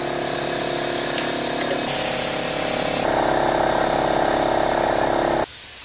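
Small portable air compressor running with a steady, rapidly pulsing buzz as it inflates a dirt bike tire. Its motor cuts off about five and a half seconds in, leaving a hiss of air.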